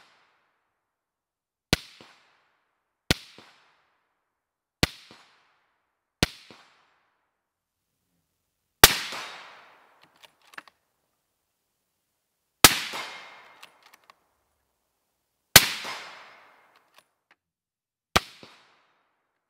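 Eight suppressed rifle shots, each a sharp crack followed by a short fading echo: four quicker, quieter ones in the first seven seconds, then three louder ones with longer echoes a few seconds apart from a 20-inch .30-06 bolt-action rifle firing 180-grain Winchester loads through a Yankee Hill Machine Resonator suppressor, and one more shot near the end.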